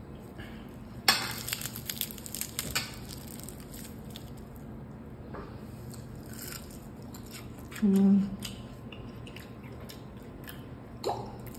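Crispy fried chicken crust crackling as a piece is torn apart by hand: a flurry of fine crackles that starts about a second in and lasts about two seconds. Later comes a short hummed 'mm' from a person.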